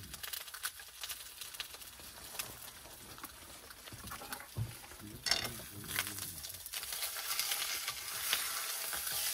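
Slices of pork fat sizzling in a frying pan over charcoal, with scattered crackling pops as the fat renders into grease. The sizzle grows louder in the later part.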